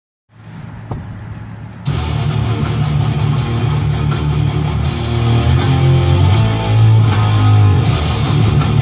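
Heavy rock music: a quieter guitar lead-in, then the full band with distorted guitars and drums crashes in about two seconds in.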